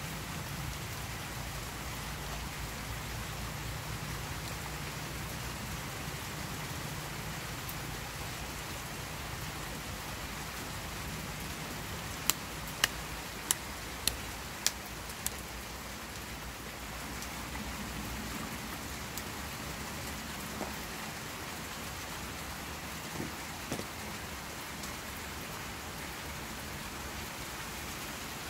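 A child clapping her hands six times, a little over half a second apart, over a steady hiss.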